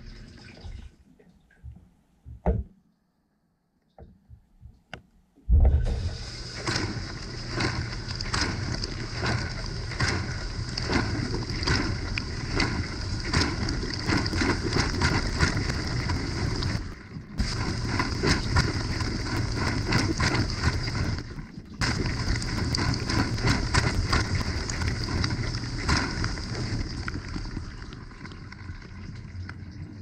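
Whirlpool dishwasher's wash cycle heard from inside the tub: after a few seconds of near quiet with faint clicks, water jets start spraying about five seconds in, spattering against the dishes and sloshing over a steady pump hum, with two brief dips.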